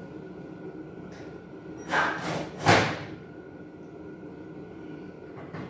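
Three quick knocks of sheet-steel cabinet parts being handled and set against each other, about two seconds in, the last a heavy thump. A steady hum runs underneath.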